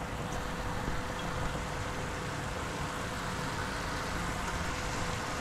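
Sliced chicken frying in oil in a hot skillet, a steady sizzle while it is stirred with red curry paste and ginger.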